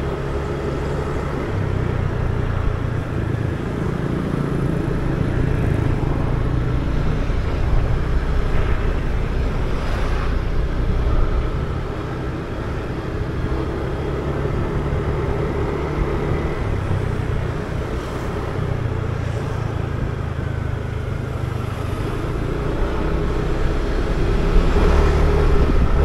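Motorbike engine running while riding along a street in traffic, under a steady low rumble of riding noise. The engine note rises and falls gently with the throttle, and it gets a little louder near the end.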